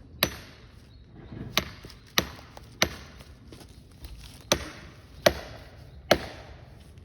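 An axe chopping into Australian hardwood: seven sharp strikes at uneven intervals, each with a short ringing tail.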